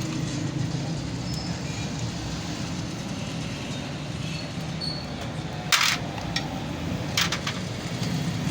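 Metal clinks of a wrench on the top cylinder-head bolts of a Honda CD70 engine as they are undone, heard over a steady low background rumble. A sharp clink comes a little before six seconds in, and another comes about a second and a half later.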